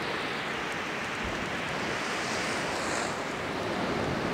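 Steady hiss of sea surf washing on the shore, swelling slightly about halfway through, with some wind on the microphone.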